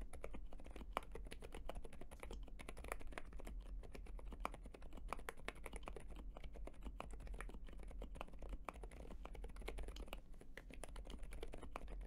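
Continuous fast typing on a NuPhy Gem80 custom mechanical keyboard: a dense run of soft, quick keystroke clicks, quiet overall, the build having been tuned to be quiet.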